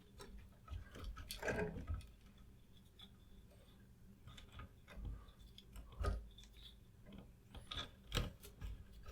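Small hand-work noises from wiring a switch: scattered light clicks and ticks, a brief rustle of wire being handled about a second and a half in, and a few soft knocks later on, as stranded switch leads are twisted onto solid-core house wire.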